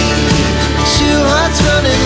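Pop song playing with a steady beat.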